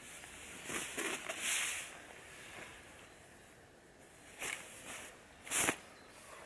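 Rustling of nylon hammock fabric and a padded jacket as a person climbs out of a hammock and stands up. A longer swishing comes in the first two seconds, then two short swishes, the second and loudest about five and a half seconds in.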